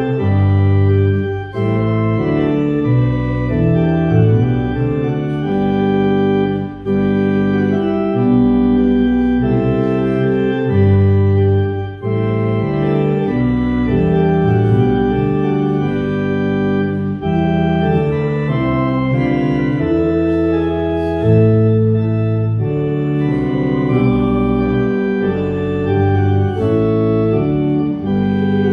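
Organ playing slow, held chords with a moving bass line underneath, the chords changing every second or so.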